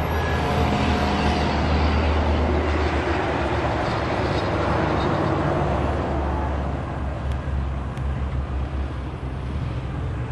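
Canadian Pacific double-stack intermodal well cars rolling past close by, a steady rumble of steel wheels on the rails that eases a little about two-thirds of the way through.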